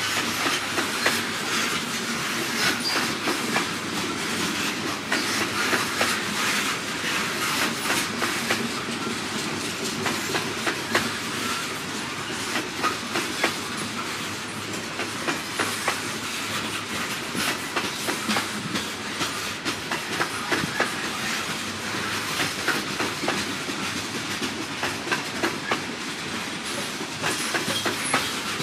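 Loaded coal hopper cars rolling slowly past, their steel wheels clacking over the rail joints in a steady stream of sharp clicks over the rumble of the train.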